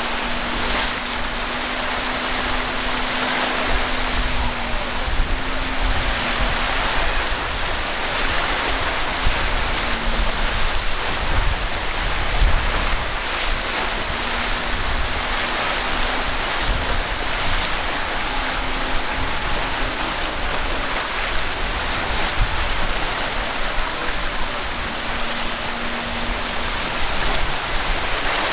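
Rough surf and choppy waves washing, with gusty wind buffeting the microphone and the faint drone of a center-console boat's outboard motor coming and going.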